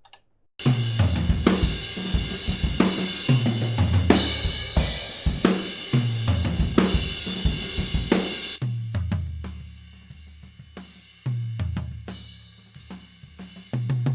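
Recorded acoustic drum kit playing a groove with tom fills: kick, snare, hi-hat and cymbals, with the toms ringing low every couple of seconds. About nine seconds in, the cymbals and high end drop back and the toms come forward.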